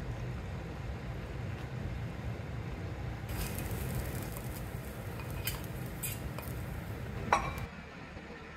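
Mango pachadi bubbling in a pan over a steady low hum. About three seconds in, a hiss like sizzling starts as a spoonful of tempering (onion, dried red chillies, mustard seeds) is tipped in. A few metal clinks of the spoon against the pan follow, with a sharp clink near the end.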